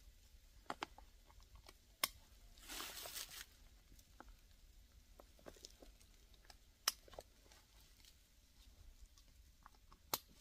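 Chainsaw chaps being strapped on: a few sharp clicks of the leg buckles, spread seconds apart, with a short rustle of the heavy chap fabric about three seconds in.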